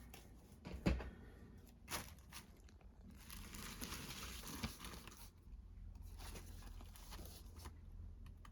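Plastic shrink-wrap being torn and crinkled off a disc case. There are two sharp knocks of hard plastic cases about one and two seconds in, and lighter clicks and rustles follow.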